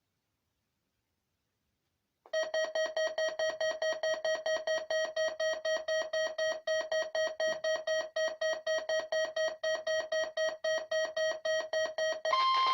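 A weather radio receiver's alarm beeping rapidly on one tone for about ten seconds, starting about two seconds in. Near the end it gives way to a steady, higher tone: the NOAA Weather Radio warning alarm tone that opens the station's weekly test.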